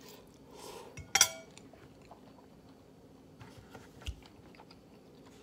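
A forkful of spicy noodles sucked into the mouth with a short, loud slurp about a second in, then quiet chewing with small mouth clicks. A soft low thump comes near the end.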